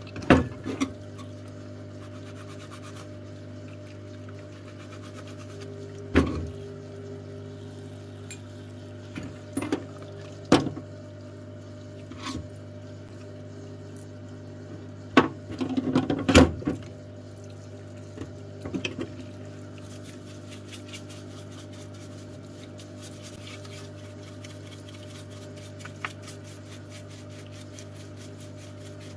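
Parts-washer pump humming steadily while solvent runs from its flexible nozzle. Over it come occasional sharp clanks and clatters as a rotary hammer's metal housing and parts knock against the metal washer tray, the loudest cluster about fifteen to sixteen seconds in.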